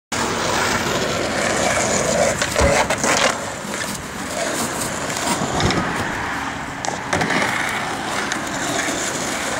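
Skateboard wheels rolling on rough concrete, a steady gritty rumble, with a few sharp clacks and knocks from the board: a cluster about two and a half to three seconds in, and single ones near five and a half and seven seconds.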